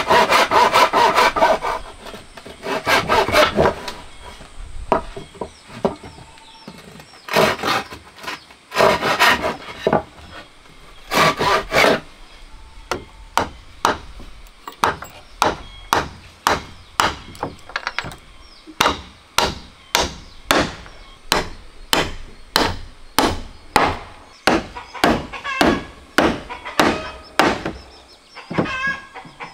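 Handsaw cutting through a wooden plank in quick back-and-forth strokes, with more bursts of sawing a few seconds later. Then a hammer drives a chisel into a wooden post in steady blows, about two a second.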